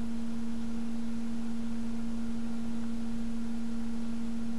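Steady electrical hum: one low, unchanging tone with a fainter higher tone above it.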